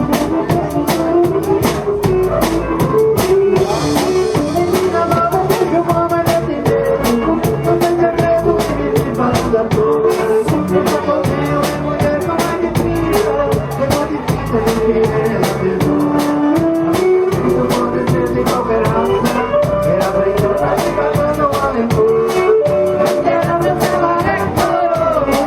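Live band music in xote rhythm: an accordion melody over a drum kit's steady beat and a bass line.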